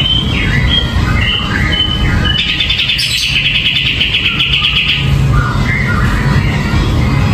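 Caged kapas tembak bulbul singing, in a run of varied short chattering notes. About two and a half seconds in comes a long, rapid, buzzy trill lasting about two and a half seconds, before the short notes resume.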